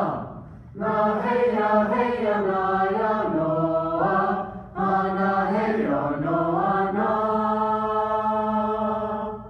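A voice singing in long held notes, with a short pause for breath about half a second in and again about four and a half seconds in. The last note is held steady for about two seconds, then fades out near the end.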